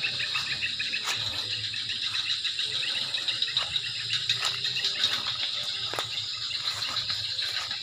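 Night insect chorus, a steady high-pitched trilling, with a few faint clicks.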